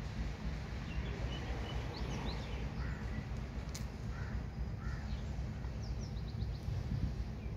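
Birds calling in the background, a few short high chirps and brief calls, over a steady low rumble.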